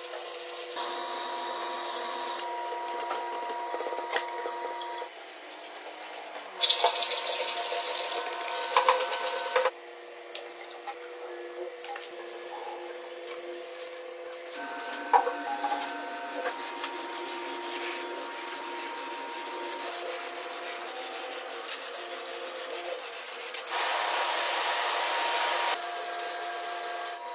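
Engine parts being worked on by hand: a brush scrubbing foamy cleaner on an aluminium engine cover, with small clicks and rubbing. A loud hiss comes in about 7 s in for some three seconds and again near the end, over faint steady tones.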